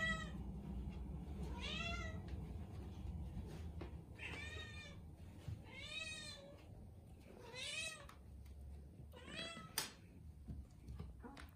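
Hungry domestic cat meowing for food, six meows a couple of seconds apart, each rising then falling in pitch. A sharp click comes near the end.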